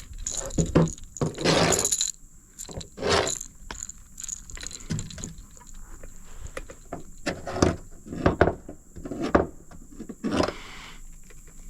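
Irregular scraping, knocking and rattling as a bass that has swallowed the lure is handled and the hook is worked out. The noise is densest at the start, then comes in short separate bursts.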